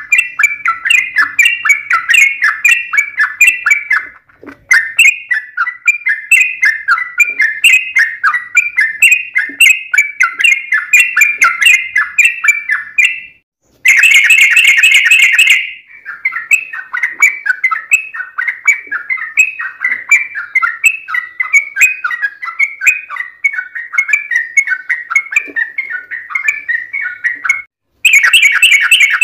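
Yellow-vented bulbul (trucukan) song: long, rapid runs of bubbly chattering notes, several a second, broken by two brief pauses. A denser, louder run comes in about halfway through and again near the end.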